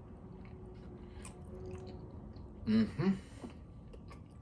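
A person chewing a mouthful of dumpling and butter, with small wet mouth clicks. About three seconds in comes a short two-part vocal sound from the eater.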